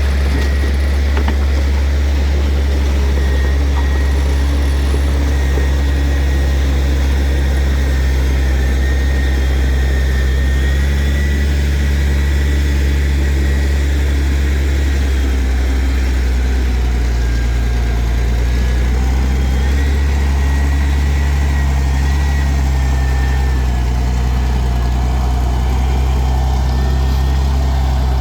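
Heavy earthmoving machine's diesel engine running steadily at a constant low drone, with a faint thin high whine wavering above it.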